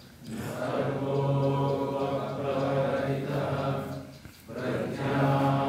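A man's voice chanting a Sanskrit invocation in long phrases held on a nearly steady pitch, with a short break for breath about four seconds in.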